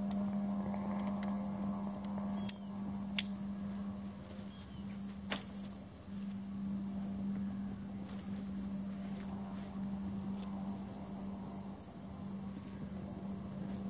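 Steady high-pitched insect chorus over a low steady hum, with scattered sharp clicks, the two loudest about three and five seconds in.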